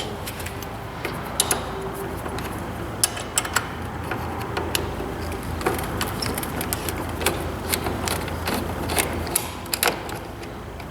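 Light metallic clicks and rattles of small hardware being handled, as a hanger bracket is unhooked from a Kubota BX24 tractor's loader control lever, over a steady low hum that fades out near the end.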